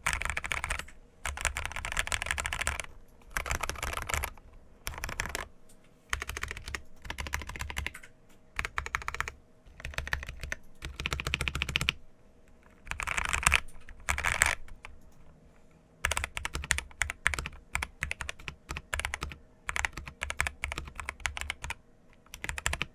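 Typing on an Epomaker Feker JJK84 75% mechanical keyboard fitted with Akko Jelly Sponge tactile switches and XDA-profile keycaps. The keystrokes come in quick runs of a second or two with short pauses between them.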